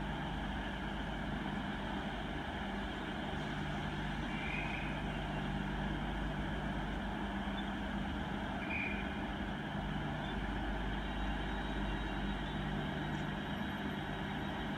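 Diesel multiple-unit trains idling at the platform: a steady, even engine drone with a low hum. Two short high-pitched tones sound, about four seconds apart.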